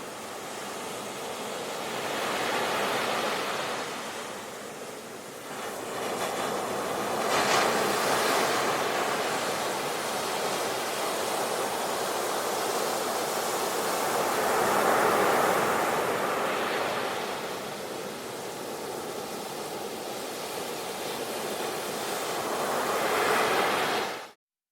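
Ocean waves washing onto a shore, swelling and falling back every few seconds, until the sound cuts off abruptly near the end.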